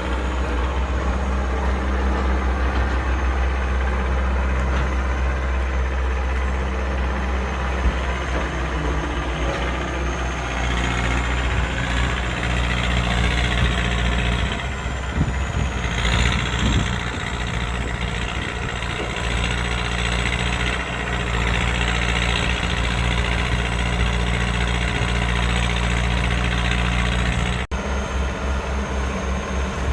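Excavator diesel engine running steadily, its load rising and falling a little as the machine works, with a momentary break in the sound near the end.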